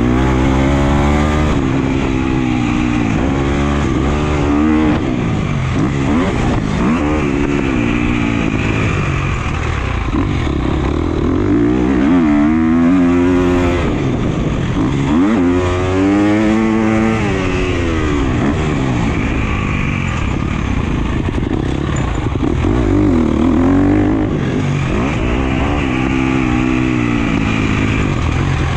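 2017 Husqvarna FC250's 250cc four-stroke single-cylinder motocross engine under hard riding, revving up and backing off again and again, its pitch rising and falling every few seconds through accelerations, shifts and braking.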